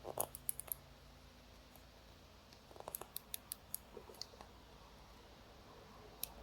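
Faint clicking of a tiny travel alarm clock's ratchet as the alarm mainspring barrel is wound by hand: a quick run of clicks at the start and another run about three seconds in.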